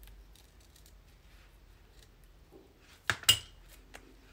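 Fabric scissors making a few faint snips through lace, then set down with two sharp metallic clacks about three seconds in, the second ringing briefly, and a lighter click just after.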